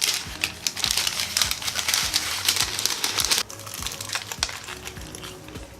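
Crunching as a bite is taken into the crispy coating of KFC Nacho Cheesy Crunch fried chicken and chewed. A dense crackle lasts about three seconds and stops abruptly, followed by fainter, scattered crunching. Background music plays underneath.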